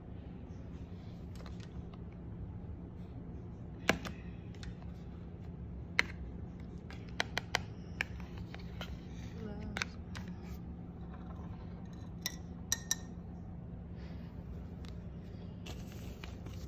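Small boxes and items handled and set down on a hard tabletop: scattered sharp clicks and taps, a few in quick succession, over a steady low hum.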